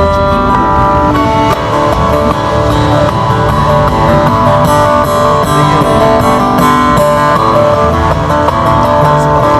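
Acoustic guitar played fingerstyle: plucked melody notes over a bass line, played steadily without a break.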